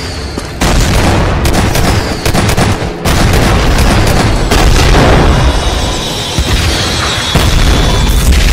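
Loud cartoon battle sound effects: booming explosions and rapid gunfire in a dense continuous din. It starts suddenly about half a second in and breaks off sharply at about three seconds before carrying on.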